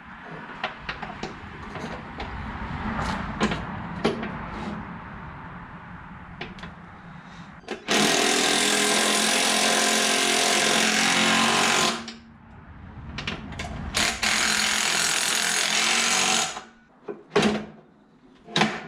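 A power tool runs in two loud bursts, one of about four seconds and then one of about two and a half seconds, each starting and stopping abruptly. Scattered light clicks and clatter come first.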